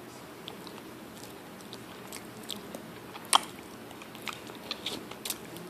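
Crunching and clicking in short, irregular bursts, like someone chewing crunchy food, with one sharper click just past the middle.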